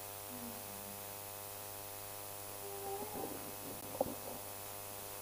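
Steady electrical mains hum and buzz from the microphone amplification, with faint soft sounds and a single sharp knock about four seconds in as the stand microphone is moved.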